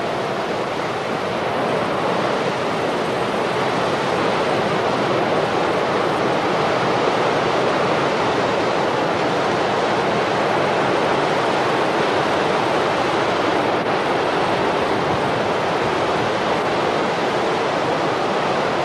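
Continuous rushing roar of a large rockslide, rock and debris pouring down the slope. It gets a little louder about two seconds in and then holds steady.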